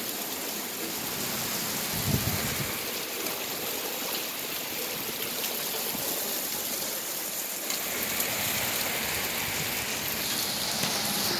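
Thunderstorm rain falling steadily, an even hiss of water with no break.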